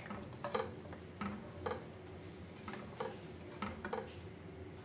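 Wooden spatula stirring thick nihari gravy in an aluminium pressure-cooker pot, with light irregular taps and scrapes against the pot's sides, about seven in all. The gravy is stirred steadily as flour slurry is worked in to thicken it.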